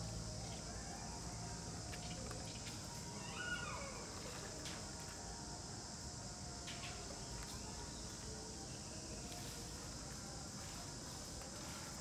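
Outdoor ambience dominated by a steady high-pitched insect drone, with one short animal call that falls in pitch about three and a half seconds in and a few faint ticks.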